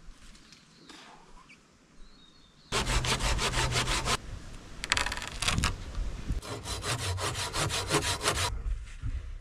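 Hand pruning saw cutting through a wooden pole: rapid back-and-forth strokes in three bouts with short pauses, starting a little under a third of the way in and stopping shortly before the end.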